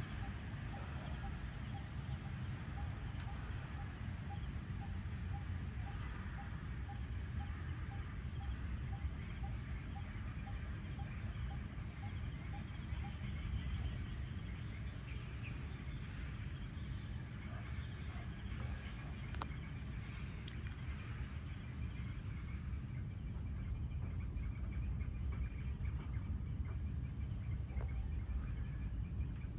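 Evening insect chorus: crickets and other insects keep up a steady high, thin drone over a low steady rumble. For the first dozen seconds a short note repeats about twice a second, with scattered faint chirps.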